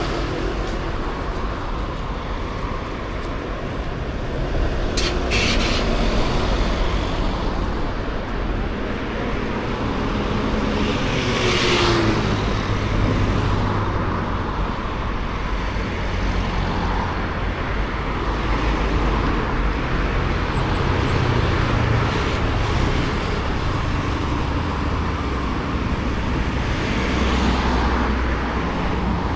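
Road traffic: cars and other vehicles running and passing steadily, with a short sharp clatter about five seconds in and a passing swell near the middle.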